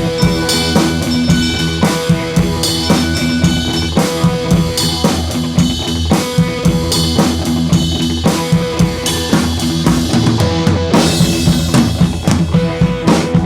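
Music with a driving drum-kit beat, kick and snare hitting steadily, over sustained pitched instruments.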